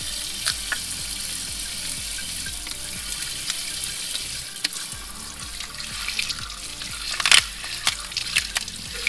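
Tap water spraying into a sink over a Dungeness crab as it is cleaned by hand. Scattered sharp clicks and crackles come from the shell and gills being pulled apart, with the loudest crackle about seven seconds in.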